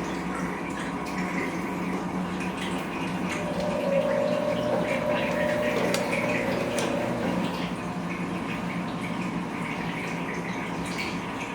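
Bosch Komfort-Klasse washing machine running mid-cycle, with water moving and a steady hum. A clear tone grows louder for a few seconds around the middle.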